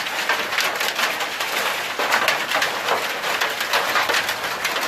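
Heavy falling snow and ice pattering steadily on a corrugated metal roof: a dense, even hiss of countless fine ticks.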